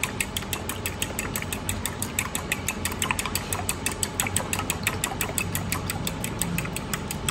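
A utensil beating egg and milk in a glass bowl, clicking against the glass in a rapid, even rhythm of several strokes a second.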